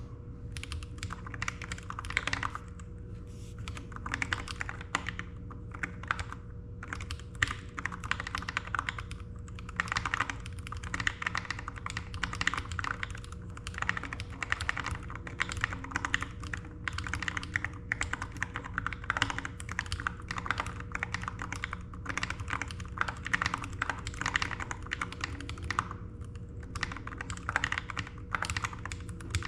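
Typing on a Skelecygnus split ergonomic mechanical keyboard: a fast, continuous patter of keystrokes with brief pauses every few seconds, over a faint steady hum.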